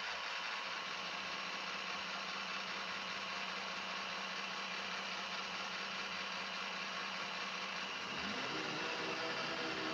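iRobot Roomba j5 robot vacuum running with a steady whir from its motor and brushes. About eight seconds in, its motor note changes and higher tones come in.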